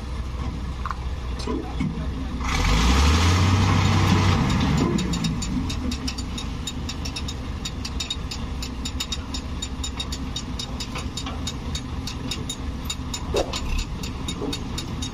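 The ferry's engine running steadily. About two and a half seconds in it revs up with a rising pitch, holds for about two seconds, then settles back. From then on it runs with a fast, irregular ticking.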